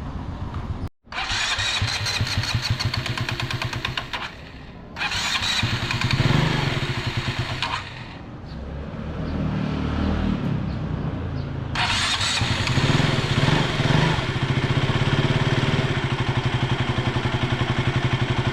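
KTM Duke 200's single-cylinder engine started up, revved and left running, with its cam chain noise still there after a new cam chain tensioner was fitted: the mechanic takes it for a worn cam chain.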